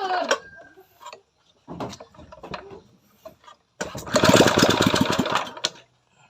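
A small petrol engine fires and runs with a rapid pulsing for just under two seconds, then cuts out suddenly.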